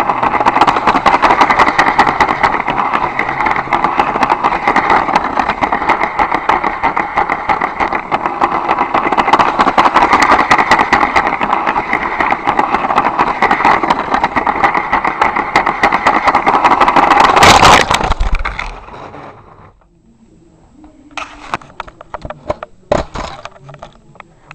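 Lego train running along plastic track, a steady rattling whir heard from a camera riding on the train. About 17 seconds in it crashes into a Lego car with one loud smash, the running noise dies away, and a few scattered clacks follow near the end.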